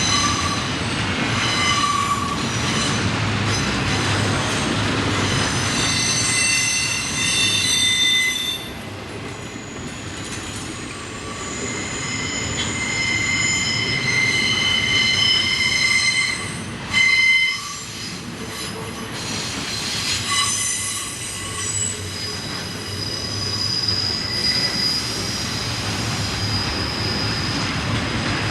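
Passing train's steel wheels squealing against the rails, several high steady squeal tones that shift and come and go over the rumble of the cars. One brief louder burst about two-thirds of the way through.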